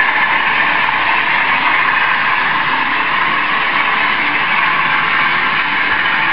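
Model railway train running along the track, a steady whirring rumble of the motor and wheels on the rails.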